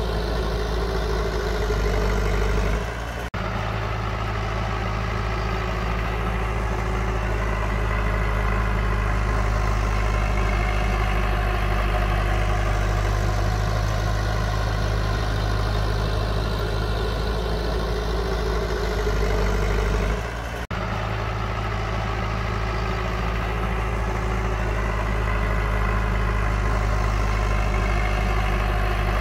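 Heavy diesel engine of earthmoving machinery running steadily at a low, even pitch. It drops out briefly twice, with a click each time: about three seconds in and again about twenty seconds in.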